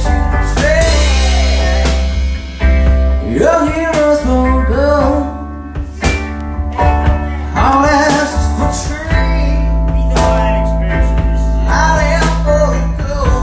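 Live song: a man singing while strumming a hollow-body archtop electric guitar, with drum strokes keeping the beat.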